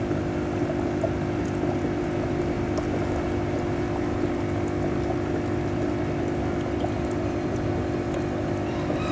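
A steady low hum with a faint watery hiss and a few light ticks.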